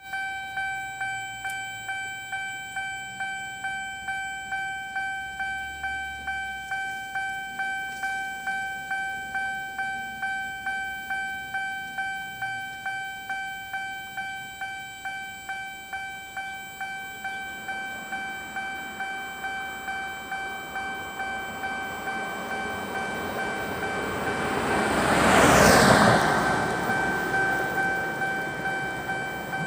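Railroad crossing warning bell sounding a steady ringing tone that pulses about twice a second. A diesel train on the Jiji line approaches and passes over the crossing, loudest about 26 seconds in, then fades while the bell keeps ringing.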